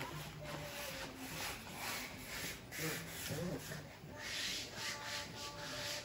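Hands rubbing and sweeping over a large adhesive sticker laid on a wood-look floor, pressing it flat as the backing is peeled away. The rubbing comes as a series of swishing strokes, about one or two a second, some stronger than others.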